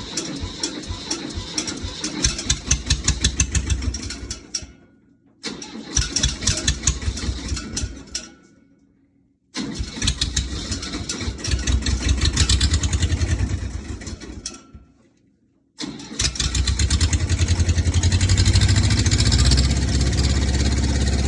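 Ford diesel tractor engine cranking on the starter in repeated bursts, stopping and retrying three times; on the fourth try, about sixteen seconds in, it catches and keeps running steadily. A hard start on diesel suspected of having gelled in the cold, with the block warmed and the glow plug heated beforehand.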